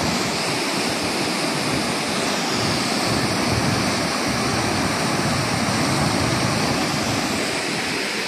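Canal water rushing through the gates of a concrete canal regulator and churning into foam below: a steady, loud rush of fast, turbulent water.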